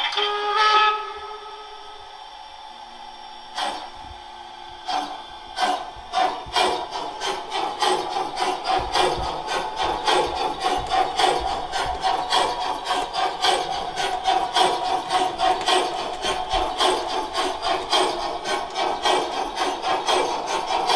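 Sound decoder of a gauge 1 model DR class 64 steam locomotive: a short whistle in the first second, then after a pause the locomotive starts off. Its exhaust chuffs begin slowly about five seconds in and quicken to a steady, fast beat with steam hiss.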